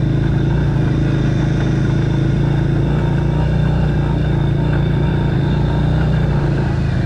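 Motor vehicle engine running steadily at an even pace, a constant low drone with road noise.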